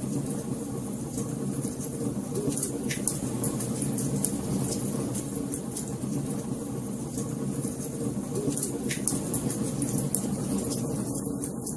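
Fire crackling: scattered sharp pops over a steady low hum.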